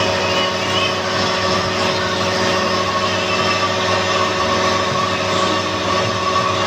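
Wintec TC15 CNC lathe running steadily, a constant machine hum made of several steady tones.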